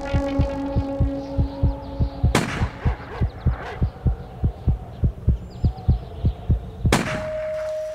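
Horror-film soundtrack: a fast, heartbeat-like pulse of low thumps, about four to five a second, under a held drone. Two sudden loud stinger hits land about two and a half seconds in and near the end. After the second hit the pulse stops and a single steady high tone is left ringing.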